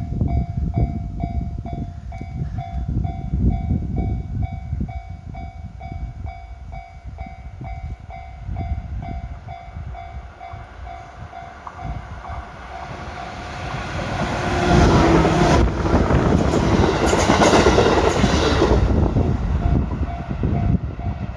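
A Japanese railway level-crossing warning bell rings steadily at just under three strikes a second. From about 13 seconds in, a JR 211 series electric train passes over the crossing: its noise builds to a loud rush for several seconds, drowning the bell, then eases as the bell comes back.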